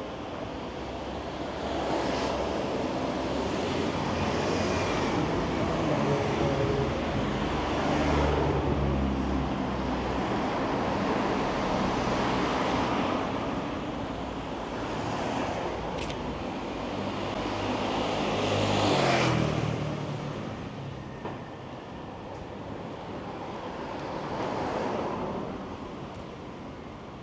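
City street traffic: cars passing close by, with a heavier engine's low hum through the first half and one loud vehicle passing about nineteen seconds in.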